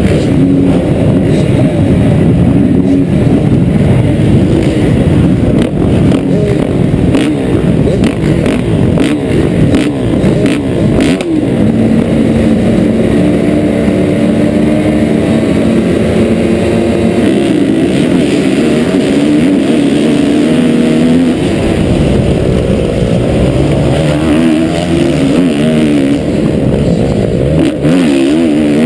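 Many motocross bike engines revving together at the start gate, the nearest bike loudest. Near the end the engine pitch rises as the bike accelerates hard on the track.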